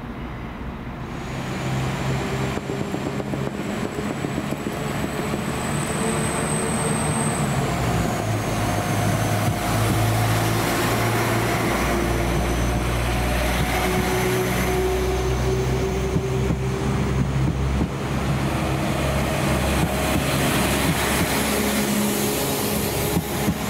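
Northern class 195 diesel multiple unit moving along the platform, its underfloor diesel engines running. A thin high whine rises and then falls about a third of the way in.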